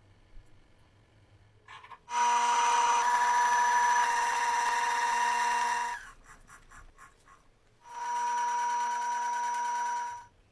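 A small motor runs at a steady high speed for about four seconds, stops, gives a few clicks, then runs again for about two and a half seconds.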